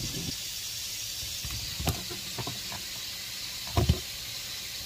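Food frying in a pan on the stove, a steady sizzle, with a few short knocks, the loudest a little before the end.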